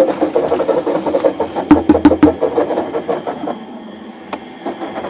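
Small drum concrete mixer turning while a bucket of river sand is tipped into its wet drum: a rapid rattling clatter with a hiss of pouring sand, a few knocks about two seconds in, then quieter after about three and a half seconds.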